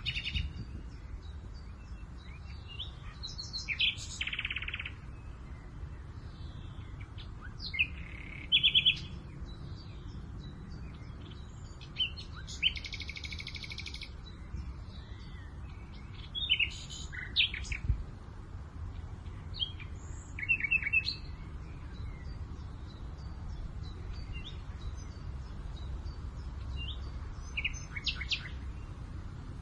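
Songbirds singing and chirping in short phrases and quick trills every few seconds, over a steady low rumble of wind.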